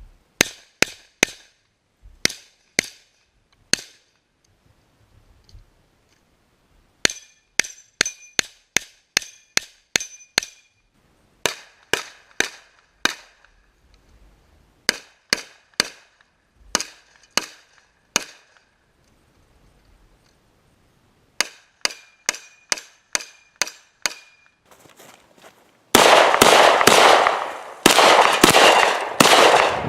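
Gunfire in quick strings of shots with short pauses between, several shots followed by the ringing of struck steel targets. About four seconds before the end a denser, louder stretch of rapid noise takes over.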